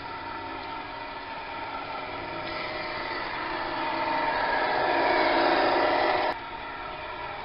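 1/14-scale Tamiya Volvo tanker RC truck running along paving slabs, its drive whirring steadily and growing louder as it approaches, then cutting off suddenly about six seconds in, leaving a quieter steady hum.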